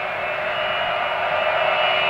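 Boeing 707 freighter's four jet engines running at taxi power: a steady rushing noise with a high whine running through it.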